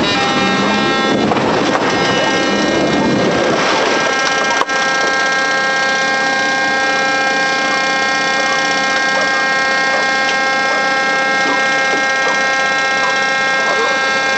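Cockpit voice recorder audio from a Boeing 737-800 that has just overrun the runway: loud rumbling noise for about four and a half seconds, ending in a short click, then a steady hum made of several held tones.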